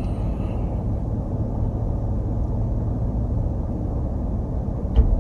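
Steady low rumble of a car heard from inside its cabin, with a short click near the end.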